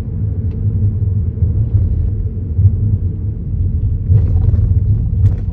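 Steady low road rumble of a Kia Niro being driven, heard from inside the car, with a few short knocks about four seconds in and another near the end: the clunking the car makes over speed bumps.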